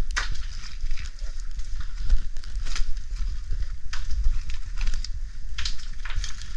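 A caver crawling through a low, muddy cave passage: irregular scrapes, knocks and shuffles of body and gear against rock, close to the microphone.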